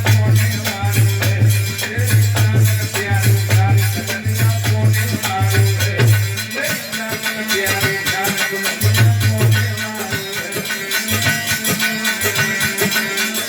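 Instrumental folk music: a melody over a heavy low repeated beat, with quick, dense percussion strokes throughout.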